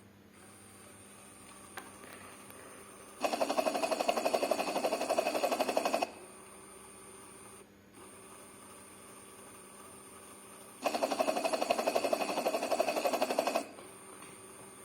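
A small LEGO motor spinning the blades of a LEGO fan model with a rapid buzzing rattle, twice, each run about three seconds long with a pause between.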